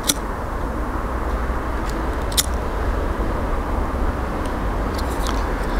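Steady low outdoor rumble, with a few light sharp clicks and one sharper click a little over two seconds in, as fire-lighter blocks are placed and lit in the mouth of an aircrete rocket stove.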